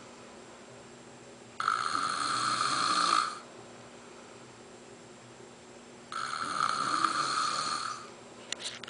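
A man snoring: two loud snores, each lasting about two seconds, about four and a half seconds apart.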